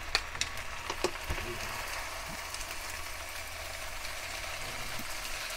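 Spaghetti and shrimp sizzling in a frying pan as they are stirred and tossed with wooden utensils. A few light knocks of wood against the pan come in the first second and a half.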